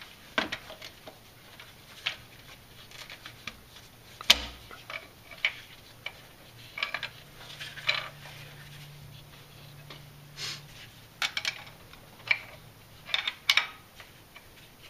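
Scattered light metallic clicks and clinks of hand tools and parts being handled at the engine's timing chain as the timing chain wedge is worked out, with one sharper knock about four seconds in.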